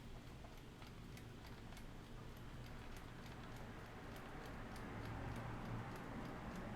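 Vintage Batman wind-up alarm clock's mechanical movement ticking with quick, even ticks, not that loud. A low hum comes in faintly about five seconds in.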